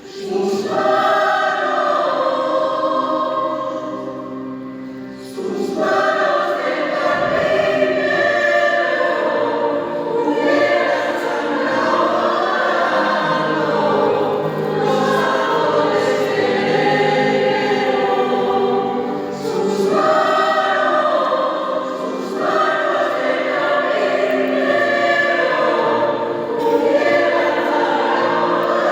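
A choir singing a sacred song, held notes in phrases with a short break about five seconds in.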